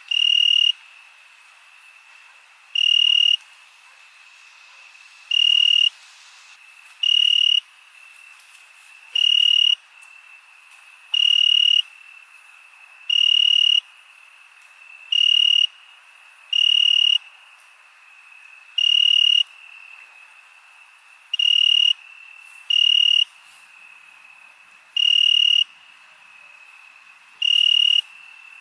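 Night crickets: a steady high trill runs underneath, with a much louder, clear chirp of about half a second every two seconds or so, fourteen in all.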